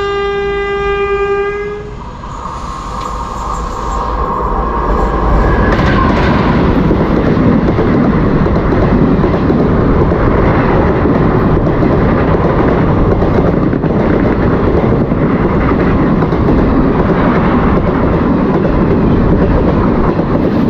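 A train horn sounds steadily and cuts off about two seconds in. Then comes the roar and wheel clatter of a passenger train passing at speed on the next track, heard from the open doorway of a moving express coach. The roar builds over the first few seconds and stays loud.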